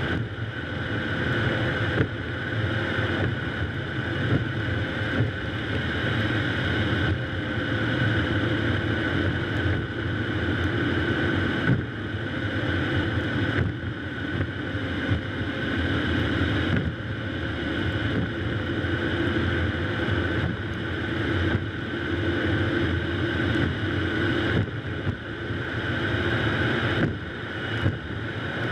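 A car driving along a street: steady road, tyre and wind noise with the engine running underneath.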